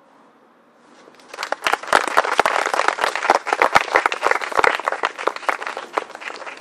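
Audience applauding: dense clapping starts about a second in and begins to thin out near the end.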